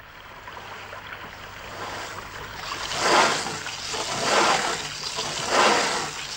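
Cartoon sound effect of a large drill boring into the jail wall: a rasping, grinding noise that grows louder and then comes in swells about once a second, like strokes of the drill.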